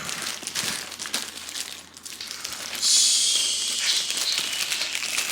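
Packaging crinkling and rustling as it is handled, with many small crackles and a louder hissing rustle about three seconds in.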